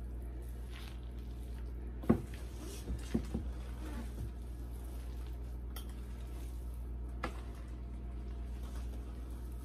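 A wooden spoon stirring a thick mix of noodles, cabbage and ham in a large stainless-steel stockpot. The spoon knocks sharply against the pot a few times between about two and four seconds in and once more a little past seven seconds, over a steady low hum.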